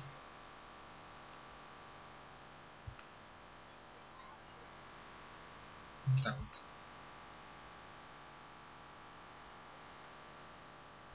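Scattered computer mouse clicks, a few seconds apart, over a faint steady hum, with one louder brief low sound about six seconds in.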